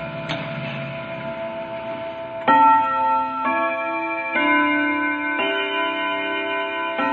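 Clock chiming for twelve o'clock. Earlier notes ring on, then about two and a half seconds in a new run of chime notes starts, struck roughly once a second, each at a different pitch, so that they form a tune.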